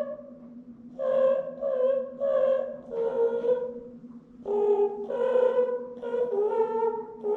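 A high-pitched voice humming a simple tune for the bird puppet, a string of short held notes with small breaks between them, over a faint steady low tone.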